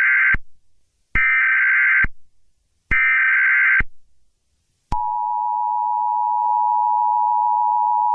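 Emergency Alert System tones: the end of one SAME header data burst, then two more data bursts about a second long with a second of silence between them. About five seconds in, the steady two-tone EAS attention signal starts and holds.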